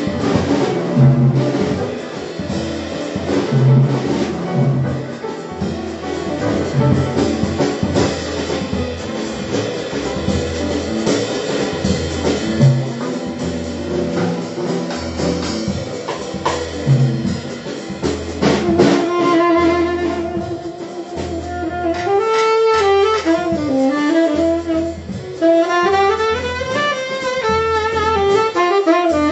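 Live jazz quartet of saxophone, piano, double bass and drum kit playing. The piano, bass and drums carry the first part, and about two-thirds of the way through the saxophone comes in with a held, bending melody line over the band.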